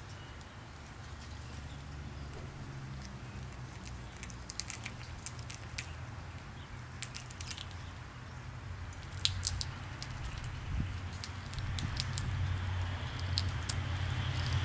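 Dry clicks and crackles of peanut shells being bitten and picked at by a chipmunk and a small bird, coming in scattered clusters through the middle. Underneath is a steady low rumble of traffic that grows louder near the end.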